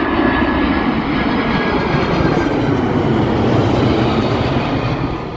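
Loud rushing rumble that starts abruptly, holds steady, then fades away near the end, likely an outro sound effect for the channel's logo card.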